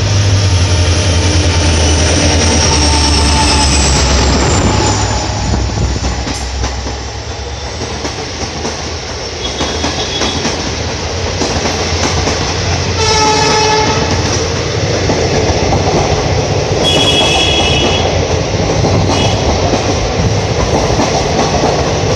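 A WDP4B diesel locomotive running through at high speed: a deep engine drone with a high whine falling in pitch as it passes, then its passenger coaches rushing by with wheels clattering over the rail joints and brief wheel squeals. A short horn blast sounds about thirteen seconds in.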